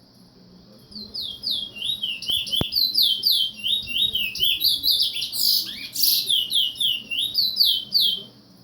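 A pet bird singing a fast run of repeated high, downward-slurred notes, about three or four a second, with a harsher, louder note about six seconds in. A steady high chirring of crickets runs underneath.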